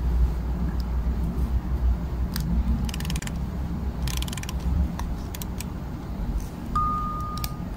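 Small hard-plastic parts of a bootleg Nendoroid figure clicking and grating against each other as the hair piece and face plate are pressed and turned onto the head. Scattered sharp clicks, with two bursts of fast ratchet-like clicking about three and four seconds in. A single chime note starts near the end.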